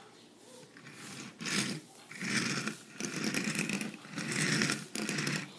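Wheels of a plastic Takara Tomy bullet-train toy rolling on a wooden tabletop as it is pushed back and forth: about five rolling passes, each under a second long.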